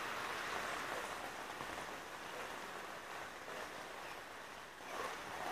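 Rain falling steadily on wet pavement and puddles, a continuous even hiss.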